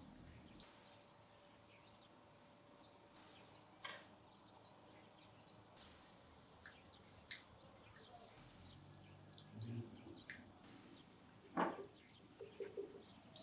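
Quiet outdoor ambience with faint, scattered bird chirps and a few soft clicks. A single sharper knock stands out near the end, followed by a few quick short pulses.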